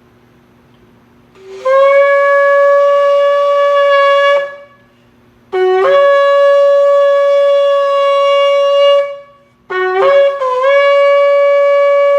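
Shofar (ram's horn) blown in three long, steady blasts, each opening with a brief lower note that jumps up to the held tone; the third starts with a short stutter before settling.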